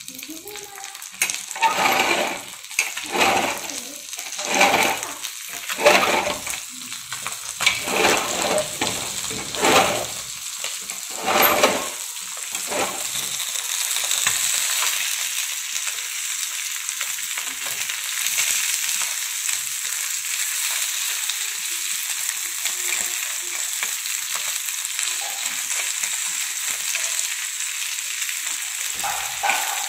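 Rava-coated small fish shallow-frying in oil on a flat pan, sizzling with a steady high hiss. Over the first dozen seconds come about ten louder strokes, roughly a second apart, from a steel spatula working the fish in the pan.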